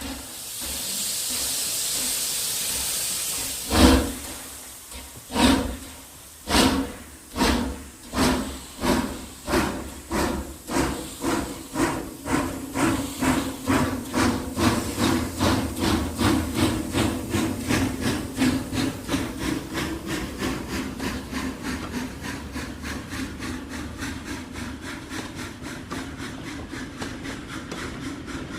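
Steam locomotive pulling away: a steady hiss of steam for about three seconds, then a loud first exhaust chuff. The chuffs that follow come ever faster as the train gathers speed, and grow gradually quieter as it draws away. No whistle.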